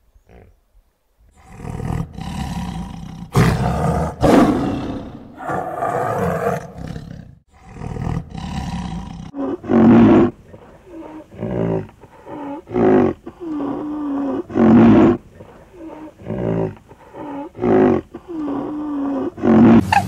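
A large animal calling loudly: several long, noisy calls, then a run of shorter pitched calls about once a second.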